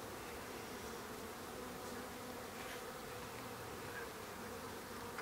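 Many honey bees from a nuc being installed into a hive, humming steadily in a low, even drone.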